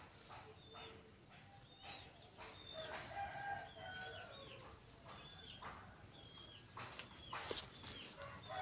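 Faint farmyard chickens: short high chirps and peeps throughout, with a longer call, likely a distant rooster crowing, about three seconds in.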